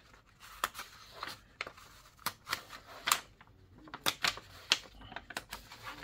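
A pointed tool poking holes through a sheet of paper laid on a laptop's plastic base: about a dozen sharp, irregular clicks and taps with light paper rustle.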